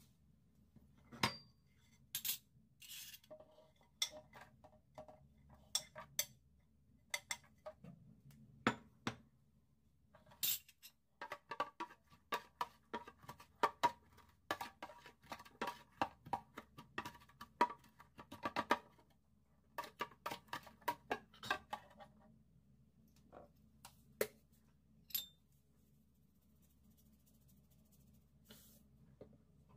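A metal spoon clinking and tapping against a plastic container and dish while ingredients are added and a dressing is stirred. Scattered sharp clicks give way to a dense run of quick clinks through the middle, then a few more taps.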